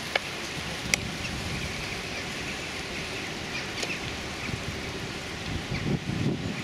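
Wind buffeting the microphone outdoors, a steady rumbling noise, with a few faint short bird chirps and two sharp clicks in the first second.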